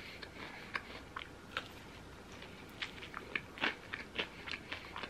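Crunchy Korean fried chicken being bitten and chewed: short irregular crunches, coming more often in the second half.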